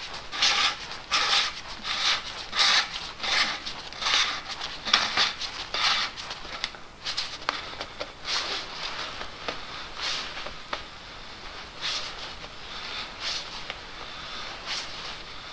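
A gloved hand twists the plastic oil filter cap onto a Mercedes M113 V8's oil filter housing, making a run of short rubbing swishes. They come two or three a second at first and grow sparser and fainter in the second half.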